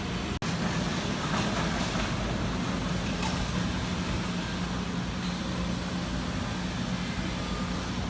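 Steady running of industrial machinery: an even hiss with a low steady hum, broken by a sudden brief dropout about half a second in.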